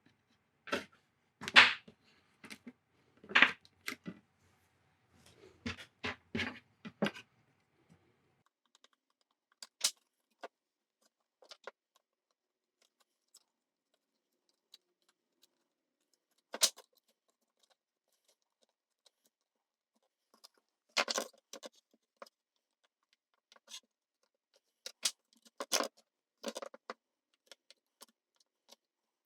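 Short, irregular scrapes and clicks of an X-Acto hobby-knife blade cutting old silicone adhesive off a circuit board. They come thick in the first few seconds, then sparsely with long quiet gaps.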